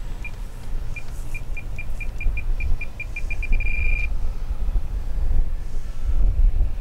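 A run of short electronic beeps at one pitch, coming faster and faster until they run together into a steady tone that cuts off about four seconds in, over a steady low rumble.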